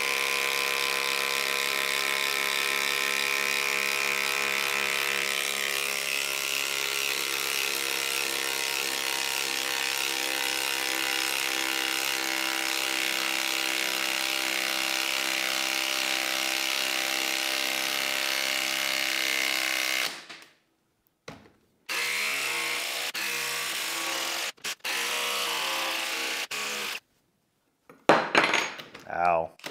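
Milwaukee M18 Fuel Gen 4 1/4-inch hex impact driver on speed 3 hammering steadily as it drives an 8-inch lag bolt into stacked wood. About twenty seconds in it stops, followed by a few short bursts.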